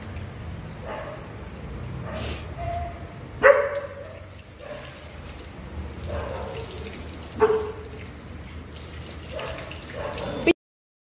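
A wet dog barking and whining in short calls, about one a second. The loudest calls come about three and a half seconds in and again at about seven and a half seconds.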